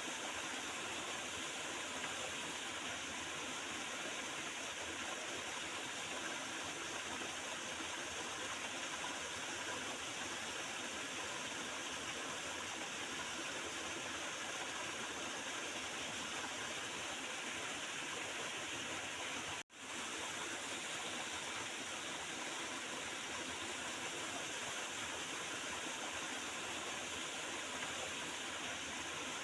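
Water gurgling and rushing steadily in a small river. It cuts out for a split second about two-thirds of the way through, then carries on unchanged.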